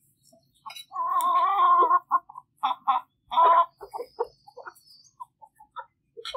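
Domestic hens clucking and calling. One drawn-out call lasts about a second, starting a second in, and a shorter one comes around three and a half seconds in, with short clucks scattered between and after.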